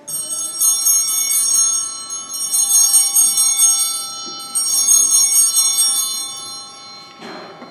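Altar bells shaken in three rounds of ringing, each about two seconds long, the last dying away near the end: the sanctus bells marking the elevation of the host at the consecration.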